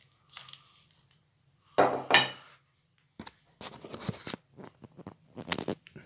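Ceramic plate knocking and clinking against a wooden table as it is handled: two loud, ringing knocks about two seconds in, then a run of lighter clatters.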